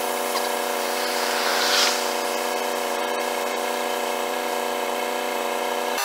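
Small electric air compressor of a truck's air-ride suspension running steadily, a buzzing whine that stays on one pitch, inflating the air bags.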